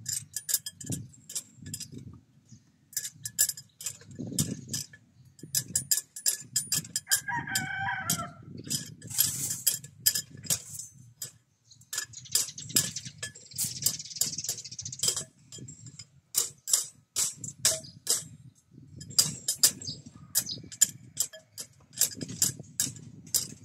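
A rooster crows once, about seven seconds in, amid many sharp clicks and knocks.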